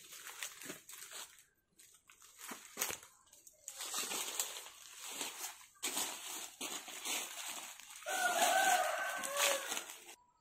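Rustling and crunching of dry leaves and plants, in irregular bursts that grow denser in the second half, with a short wavering call near the end.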